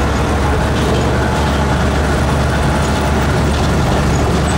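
Turbo-diesel pickup engine running hard and steady, loud and unbroken with a heavy low rumble, as during a sled pull in the 2.6-inch-turbo diesel truck class.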